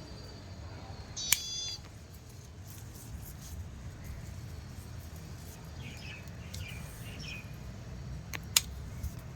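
Scissors snipping through flower stems: one sharp snip about a second in and two more near the end. Short high bird chirps come in between.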